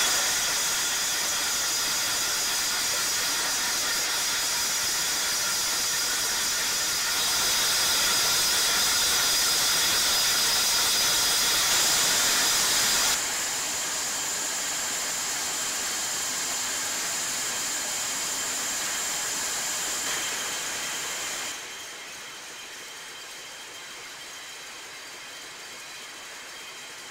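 Steady running noise of a can production line, with a tactile-symbol embossing machine and its can conveyor working. It is mostly a hiss with several steady high tones. The level steps up about a quarter of the way in, then drops abruptly twice, about halfway and about three-quarters of the way through.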